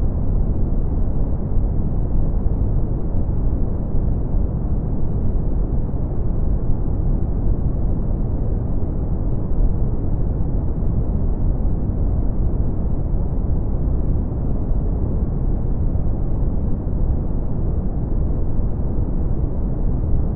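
Brown noise: a steady, unbroken rushing hiss, deep and bass-heavy, fading off toward the treble.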